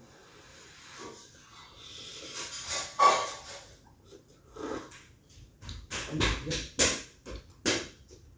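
A woman slurping noodles from a bowl, then a run of short, sharp breaths, her reaction to very spicy chili sambal.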